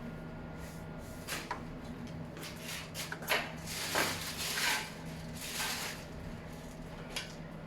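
Handling noise: a series of short rubbing and scraping sounds as parts are moved about, over a steady low electrical hum.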